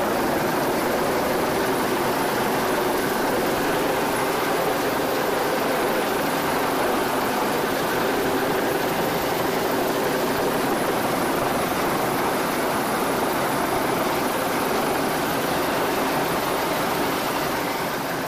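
Steady, loud rush of a hovering helicopter and wind noise over a boat running at speed at sea, fading out near the end.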